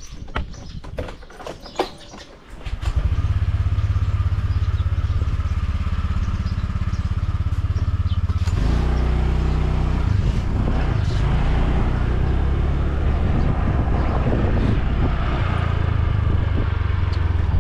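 A few handling clicks and knocks, then a small motorcycle engine starts about three seconds in and idles steadily. From about eight and a half seconds it gets louder and rougher as the bike pulls away and is ridden along the road.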